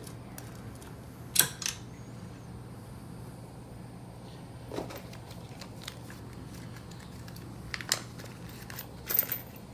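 A few scattered light metallic clicks and clinks as small shifter parts and spacers are handled and fitted, over a steady low hum.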